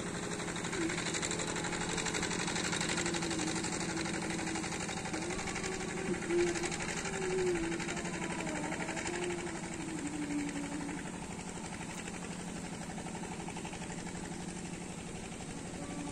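Small boat engine running steadily, with a wavering tone over it for the first ten seconds or so.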